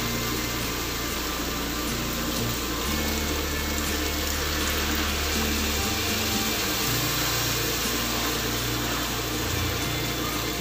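Water poured in a steady stream from a mug into a pan of chicken and greens cooking in their own oil, splashing over the food, with background music underneath.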